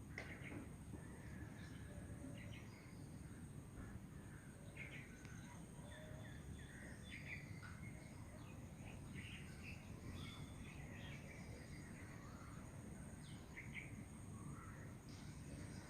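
Wild birds chirping and calling in short, scattered notes over a steady low rushing background, with a thin steady high-pitched tone underneath.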